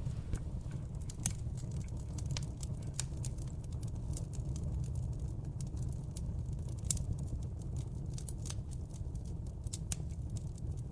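Wood fire in a fireplace crackling: irregular sharp pops and snaps, several a second, over a steady low rumble.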